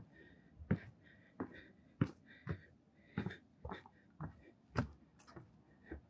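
Footsteps going down a trail of steps, about two a second, each footfall short and sharp.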